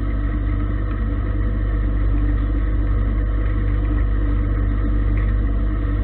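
Gildemeister CTX 400 S2 CNC lathe running, its motor spindle turning the chuck while a turning tool cuts the workpiece and throws off chips: a steady machine hum with several constant tones, strongest at the low end.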